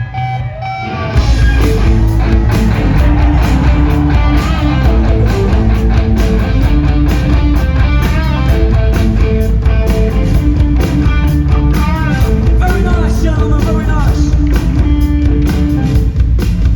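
Live punk rock band playing at full volume: after about a second of quieter guitar, the whole band crashes back in with distorted electric guitars, bass and drums.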